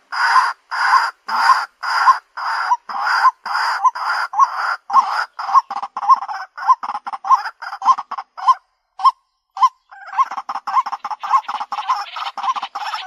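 White-breasted waterhen calling a repeated harsh "kwak" note, about two a second at first and then faster. There is a pause of about a second roughly nine seconds in before a quicker run of calls.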